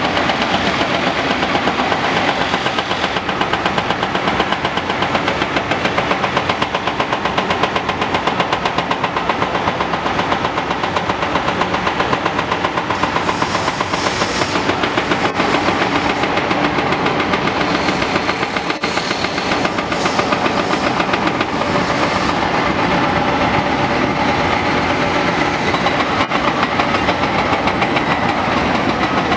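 Hydraulic breaker hammer on a Caterpillar 345D L excavator pounding reinforced concrete in a fast, steady stream of blows. The excavator's engine runs beneath the hammering.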